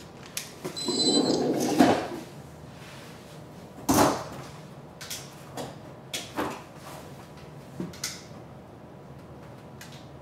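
Handling noises from a plastic VEX IQ robot being carried and set down. A rustling shuffle runs through the first two seconds, a single sharp thump comes about four seconds in, and several light clicks and knocks follow.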